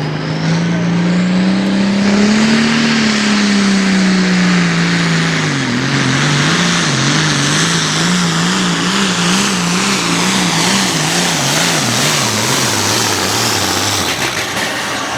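A hot farm pulling tractor's turbocharged diesel engine runs hard under full load with a heavy rushing hiss. Its note climbs, then sags as it labours. From about six seconds in the revs surge and drop rapidly over and over, and near the end the engine note falls away.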